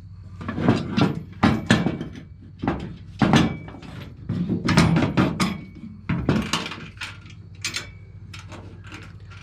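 Steel parts of a floor-style ATV/lawnmower jack knocking and clinking as they are handled and fitted together: a dozen or so irregular knocks, some with a short metallic ring.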